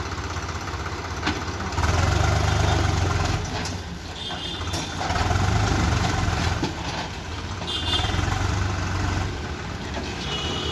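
Heavy diesel engine running at idle and revving up in three swells, each lasting a second or two, as it takes load. Short high thin tones come in between the swells.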